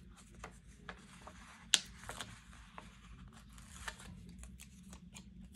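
Paper handling: sticker sheets rustling and small stickers being peeled off their backing, a string of light ticks and crackles with one sharper click a little under two seconds in.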